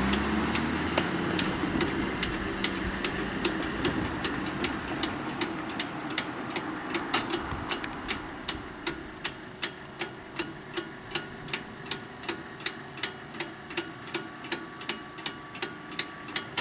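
Level-crossing bell struck by its hammer in a steady, even rhythm of about two to three strokes a second. For the first few seconds a car engine running and pulling away fades out beneath it.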